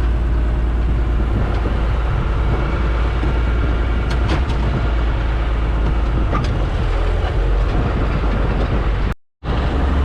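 Tractor engine running steadily under load while towing a ripper through dry, hard ground, with the implement clanking and rattling now and then. The sound breaks off for a moment near the end.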